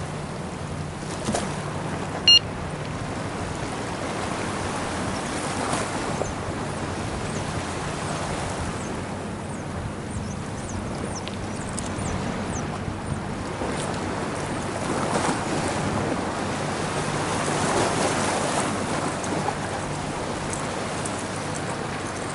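Small sea waves lapping and washing against a concrete seawall, swelling and easing every few seconds. A brief, sharp high-pitched chirp sounds about two seconds in.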